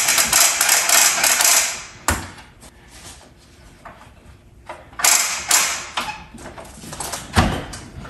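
A loud, fast rattling mechanical clicking that stops with a sharp knock about two seconds in, followed by a quieter stretch, a short scrape-like burst and a heavy thump near the end, as movers work a large refrigerator and its moving gear into place.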